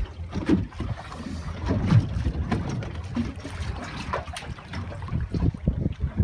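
Wind rumbling on the microphone aboard a small open boat on choppy water, with waves slapping the hull and scattered irregular knocks.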